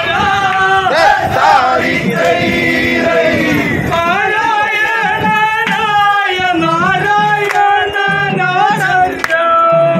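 A group of men singing vanchippattu, the Kerala boat song, in a chant-like melody with long held notes.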